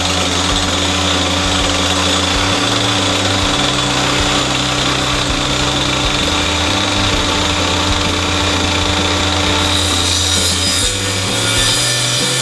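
Mini angle grinder converted into a bench circular saw, running steadily with a high whine while its blade cuts wood.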